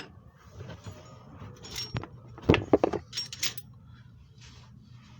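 Loose metal sockets and tools clinking and rattling as they are handled and rummaged through, with a quick cluster of sharp clinks about two and a half seconds in.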